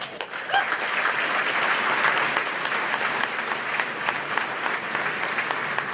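Audience applauding: many people clapping at once, steady throughout.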